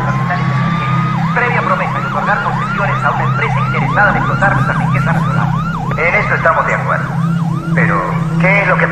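A siren sweeping quickly up and down in a fast, repeating yelp, over a steady low hum.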